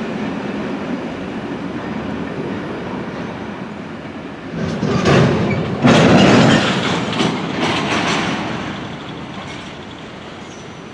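Train rolling past, a steady rumble of wheels on rail with a louder, rougher stretch of rail noise in the middle that fades away toward the end.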